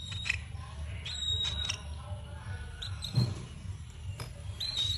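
A parrot giving short, high, steady whistles, about a second in and again near the end, with scattered clicks between them over a low steady hum.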